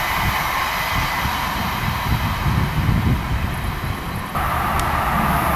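A train passing on the railway line, a steady rumble and rushing rail noise. About four seconds in the sound changes abruptly and the rushing grows louder.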